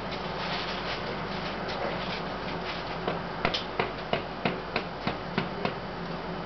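Steady distant city traffic noise with a low hum. About halfway through, a run of about eight sharp knocks comes at roughly three a second, then stops.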